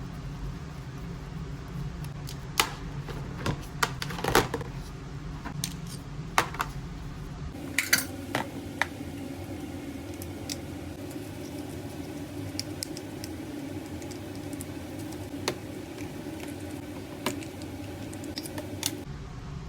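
Small metal fishing-reel parts and tools clicking and clinking against each other and the work surface as the reel is taken apart, with a busier run of clinks in the first half, over a steady low hum.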